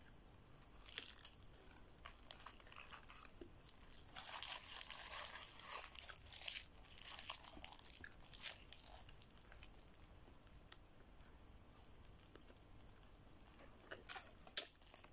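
Paper burger wrapper crinkling as the burger is handled, densest in the first half, with bites and chewing close to the microphone and a few sharp clicks near the end.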